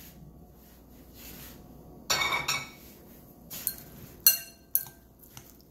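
Chopsticks and a metal spoon tossing salad in a glass bowl: a short scraping rattle about two seconds in, then a few sharp clinks against the glass, the loudest a little after four seconds.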